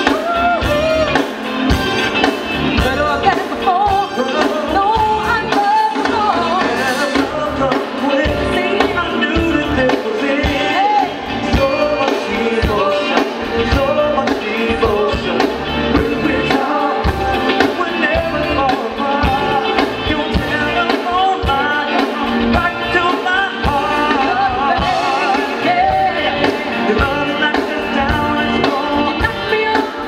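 Live soul band performing with lead singing over bass guitar, drum kit, congas and keyboards, in a steady groove.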